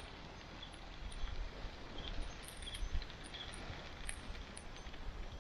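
Faint outdoor night ambience: insects chirping in short, scattered calls over a low rumble.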